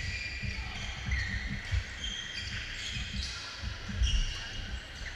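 Sneakers squeaking again and again on a hardwood gym floor, with low thuds of footwork and a faint murmur of voices.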